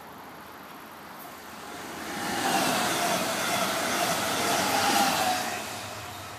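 A passenger train passing close by on the track. It grows loud about two seconds in, stays loud for about three seconds with a steady whine over the rumble of the wheels, and fades away near the end.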